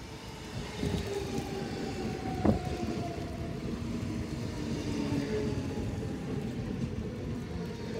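Electric S-train on the track, its motor whine slowly falling in pitch as it slows, over a steady rail rumble that grows louder. There is one sharp clunk about two and a half seconds in.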